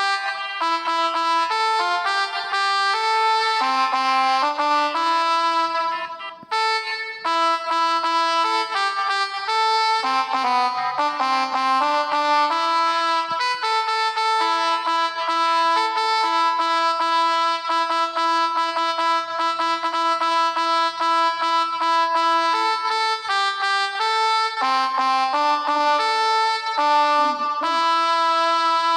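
A pianika (melodica) app on a mobile phone playing a tune of held notes, often two or three sounding together, changing every second or so, with a brief break about six seconds in.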